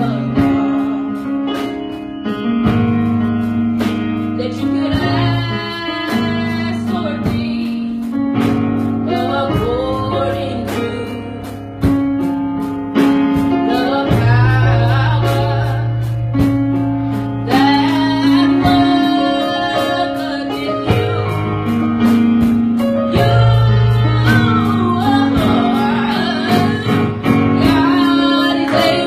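Youth choir singing a gospel song with instrumental accompaniment: sung lines over a steady bass line and a regular beat.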